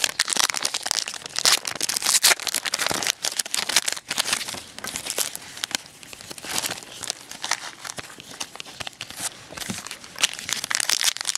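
Foil trading-card pack wrappers crinkling and tearing as packs are opened, with cards handled in between. It is a dense run of small crackles, loudest in the first few seconds.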